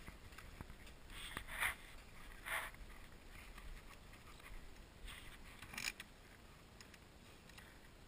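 Kawasaki KX85 two-stroke dirt bike being kicked over without firing: three faint, short strokes, about one and a half, two and a half and six seconds in, with no engine catching.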